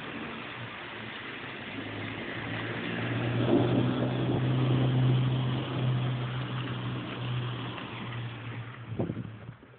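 A car engine hum swelling and then fading as a vehicle passes through the flooded street, over a steady hiss of heavy rain. A sharp knock near the end.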